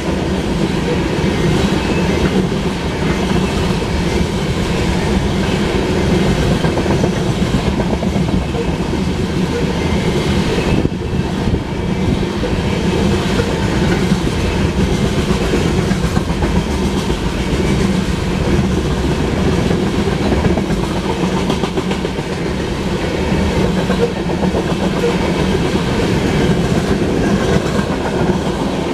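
Loaded covered hopper cars of a freight grain train rolling past, their steel wheels running on the rails in a steady, continuous rolling noise.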